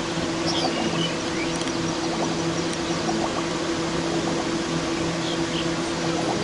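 Steady outdoor background noise with a low droning hum. A few faint, short bird chirps come through about half a second to a second in and again near the end.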